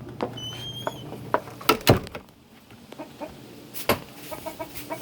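Chickens clucking in short, soft calls, with a high chirp near the start and several loud, sharp knocks around the second and fourth seconds.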